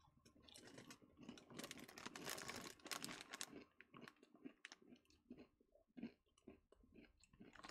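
A mouthful of crunchy snack mix (tiny Doritos, Sun Chips, Cheetos and a pretzel) being chewed, faint, with the densest crunching in the first few seconds and then sparser, quieter crunches.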